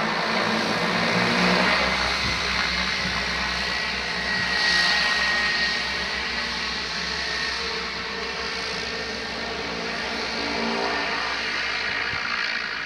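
Cessna Caravan's single turboprop engine running at taxi power: a steady propeller drone and rush with a high turbine whine, swelling slightly as the plane turns.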